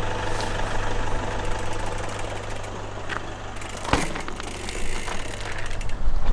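Uplift shuttle vehicle's engine running steadily at a low hum, with a single sharp knock about four seconds in.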